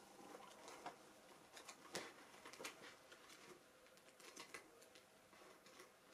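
Near silence: room tone with a few faint, scattered clicks, the clearest about two seconds in.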